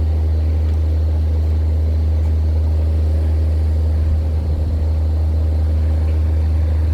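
Steady low hum of an engine running without change, the loudest sound throughout.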